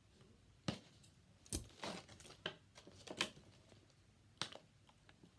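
Plastic doll packaging being handled and pulled at: about six sharp clicks and crinkles, irregularly spaced, as the doll is worked free of its fastenings.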